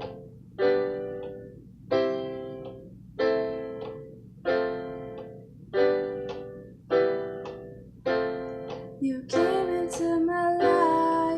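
Solo acoustic song intro: a chord played on an instrument about every 1.3 seconds, each ringing out and fading, then denser playing from about nine seconds in as a female voice starts to sing.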